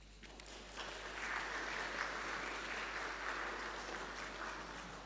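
Audience applauding a speaker as he is welcomed to the stage; the clapping builds up within the first second, holds steady, and fades away toward the end.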